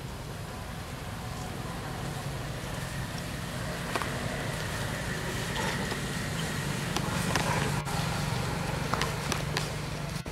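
A motorbike engine running steadily, its low hum growing louder in the second half, with a few scattered clicks and knocks over it.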